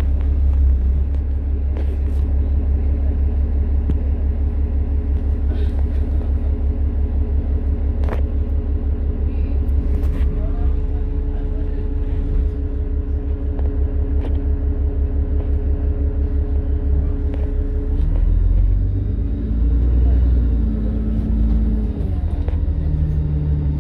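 Inside a Dennis Trident double-decker bus with ALX400 body: the diesel engine's low throbbing rumble with a steady whine over it, and a few sharp knocks and rattles from the old bus, which is known for strange noises. About 18 seconds in the engine note changes and shifts in pitch for the last few seconds.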